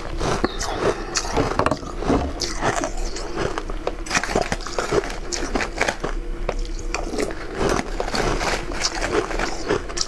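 Frozen ice being crunched and chewed in the mouth: a quick, irregular run of sharp crackles and crunches.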